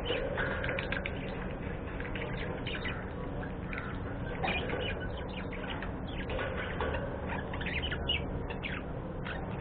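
A flock of budgerigars (budgies) chirping and chattering, with many short calls overlapping one another.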